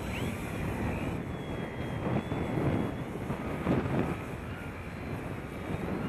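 Dynam Pitts RC biplane's electric motor and propeller whining as it flies low and comes in to land. The pitch glides and then fades after about three seconds, over gusty wind rumbling on the microphone.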